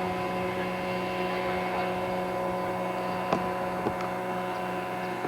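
Steady electrical hum with several fixed tones over a constant hiss, with two small clicks a little past halfway.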